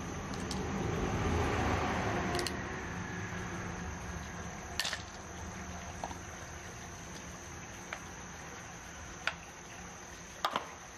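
Scattered sharp clicks and taps of freshwater mussel shells and pearls being handled over a small ceramic dish, about five of them, after a soft wet rustling in the first couple of seconds. A steady high insect trill runs behind.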